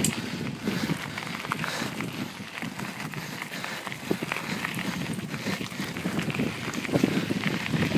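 Bicycle descending fast on a rough gravel track: tyres crunching over loose stones and the bike rattling with a dense, steady stream of small knocks, under a hiss of rolling and wind noise.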